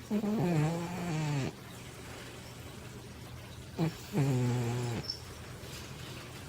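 Large Manx cat snoring in her sleep: two long, buzzy snores, one near the start and one about four seconds in, each sliding down in pitch as it ends.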